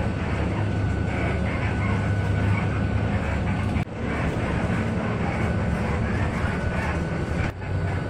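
Inside a moving city bus: a steady low drone from the engine and tyres, mixed with the rattle and knocking of the bus's suspension over rough ground. The sound drops out sharply for a moment twice.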